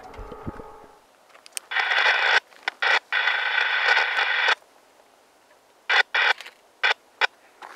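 A passing train's rumble fades out in the first second. Then come bursts of radio-like static hiss: one short, one about two seconds long, and a few short blips near the end.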